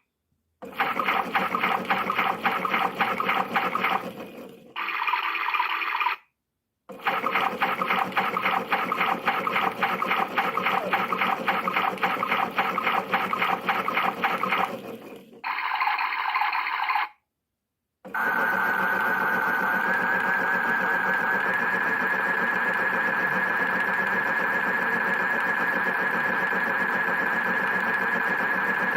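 Battery-powered toy washing machine running its programmes: a fast, rippling wash sound, cut off by short silences as the settings are switched, then a steadier whirring sound with a slightly rising tone for the last third.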